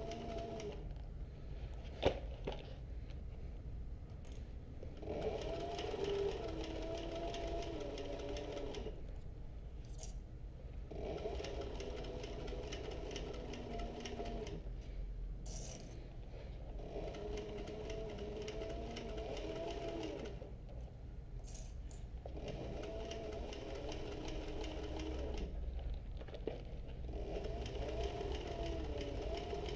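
Industrial sewing machine stitching a seam through soft leather in runs of several seconds, its motor pitch wavering with speed, with short stops every few seconds. A single sharp click about two seconds in.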